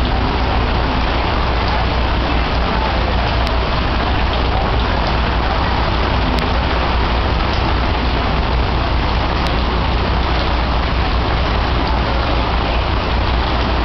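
Heavy downpour: rain falling steadily and densely on the flooded pavement and on the tent roof overhead, an unbroken rush with a low rumble beneath it.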